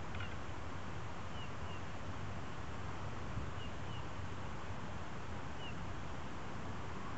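Long-tailed tits giving short, high, downward-slurred call notes, mostly in quick pairs, over a steady background rumble and hiss.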